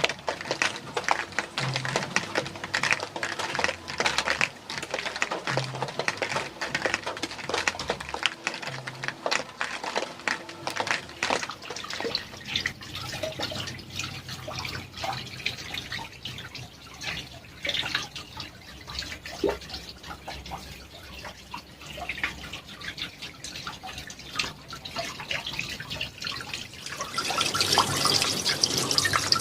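Water from a small artificial waterfall splashing and trickling into a pond, a dense patter of drips and splashes that grows louder near the end.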